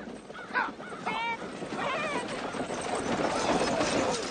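A horse whinnying in short calls, about one and two seconds in, followed by a louder stretch of noise.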